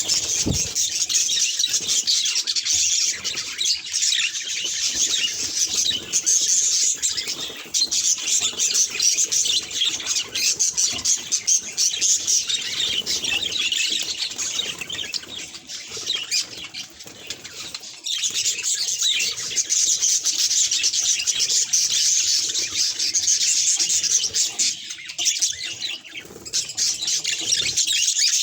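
Budgerigar chatter: a dense, rapid, continuous stream of high chirps and warbles, softening for a few seconds around the middle before picking up again.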